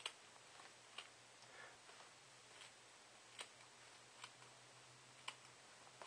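Scissors snipping through a fibrous evaporative cooler pad: a handful of faint, irregular clicks about a second apart.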